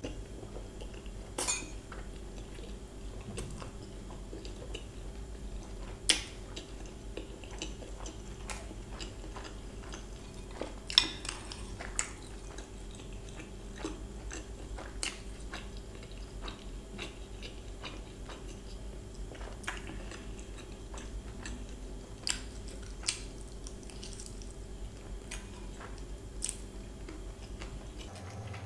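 Close-miked chewing of a mouthful of fried rice, with a metal spoon clicking now and then against a glass bowl; the sharpest clicks come about 6 and 11 seconds in. A steady low hum lies underneath.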